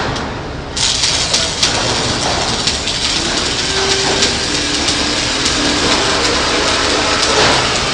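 Electric welding arc struck about a second in, then a steady crackling sizzle with sharp pops as the weld runs.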